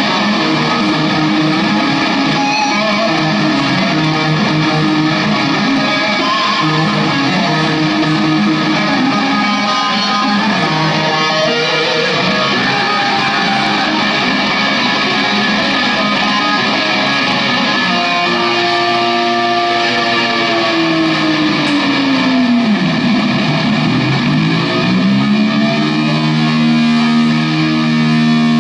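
Electric guitar played loud at a live rock gig: a run of sustained notes, then, about two-thirds of the way through, a held note bent smoothly down more than an octave and back up before settling on held notes.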